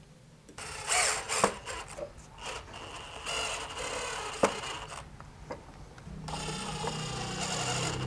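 Cordless electric screwdriver driving screws through a plastic float-switch bracket into a wooden board. It runs in several short spurts with a few sharp clicks, and the longest run comes near the end.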